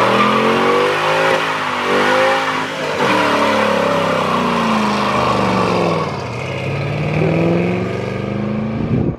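Ford Mustang spinning its rear tyres in a smoky burnout and accelerating away. Its engine revs up and falls back several times over the hiss of the spinning tyres.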